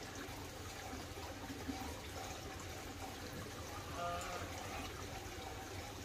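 Steady trickling water, with a few short chirps from small aviary finches, loudest about four seconds in.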